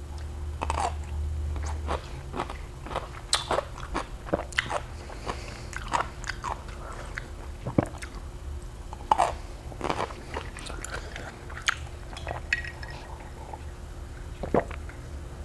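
Close-miked mouth sounds of biting and chewing crunchy food: many short, sharp crunches and wet clicks at an irregular pace, with a low steady hum underneath. Near the end, a sip from a glass of iced water.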